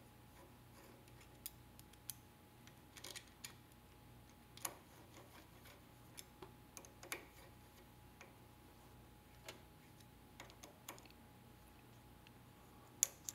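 Faint, irregular metallic clicks of a 4 mm Allen wrench being fitted and turned in a screw on an offset press's ink drive clutch assembly, over a faint steady hum.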